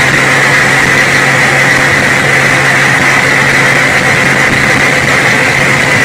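Express bus running at highway speed with a steady, jet-like whine over a low engine hum, heard from a car close behind it, along with road noise.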